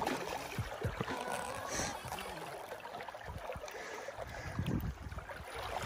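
Hooked coho salmon splashing and thrashing at the river's surface, with uneven low thumps of wind buffeting the microphone.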